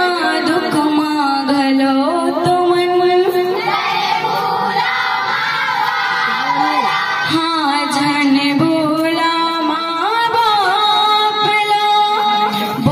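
Female voices singing a Panthi folk song in unison through a PA system, with long held notes and sliding melodic turns over instrumental accompaniment.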